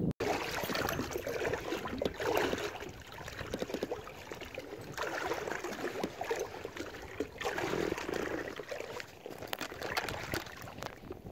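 Rustling and clicking of hands and sleeve handling a spinnerbait close to the microphone, over water lapping and trickling against a kayak hull, swelling every couple of seconds.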